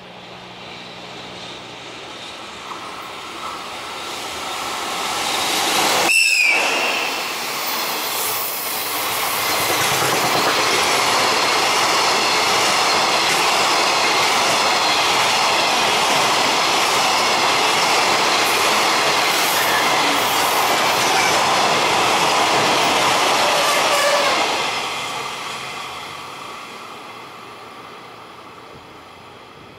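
JR Freight EF65 electric locomotive (EF65-2085) passing at speed with a long container freight train. About six seconds in, the locomotive's whistle gives one short high blast, an acknowledgement signal to a trackside lookout. The container wagons then run past with a steady loud wheel noise for about fifteen seconds before the sound fades away.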